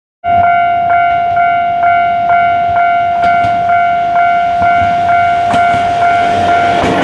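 Level-crossing warning bell ringing about twice a second, each strike followed by a steady ringing tone, over the low running noise of an approaching diesel railcar. The bell cuts in abruptly and stops shortly before the end.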